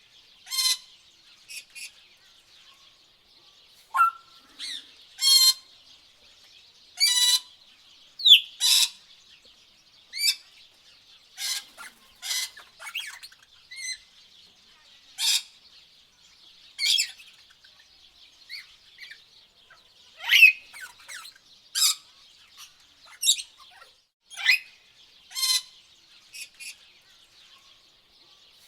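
Tropical birds calling: short, loud chirps and whistled calls, some sliding in pitch, come one after another every second or so over a faint, steady, high-pitched background.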